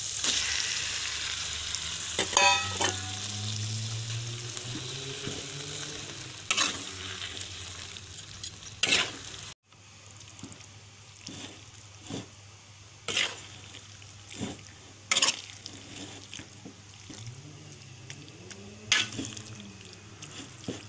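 Beef pieces sizzling in hot oil and spice paste in a wok as a metal spatula stirs them, scraping and knocking against the pan. The sizzle is loudest in the first few seconds. After a brief break about nine seconds in, a quieter sizzle remains, with a sharp spatula scrape every couple of seconds.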